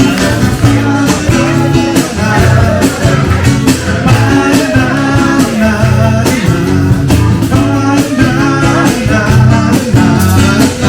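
Band music with guitar, bass and a steady drum beat, with some singing.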